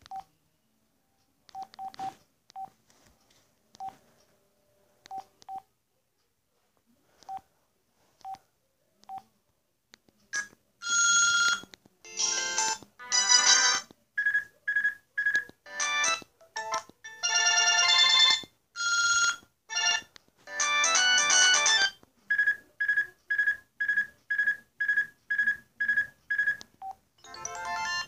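Sanyo flip phone's keypad beeping as its ringtone menu is scrolled, then, from about ten seconds in, built-in ringtones playing loudly one after another: several short electronic melodies, then a quick beep repeated about twice a second.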